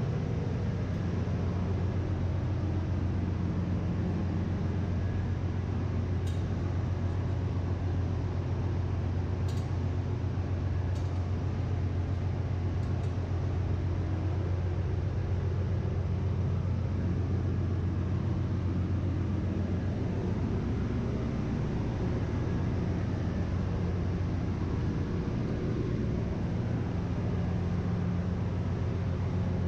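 Steady engine-room machinery drone with a constant low hum, heard from inside a stopped ship's main engine crankcase. A few faint light clicks come a third of the way in.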